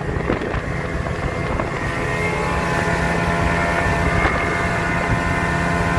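Outboard motor of a Smuggler 6.3 boat running steadily at speed, with the rush of water and wind over the boat.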